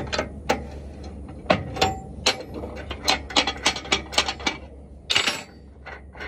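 Ratchet wrench clicking as a bolt is turned to adjust the rear wheel height of a bush hog mower: a few scattered clicks, then a quick run of clicks in the middle. There is a brief scrape about five seconds in.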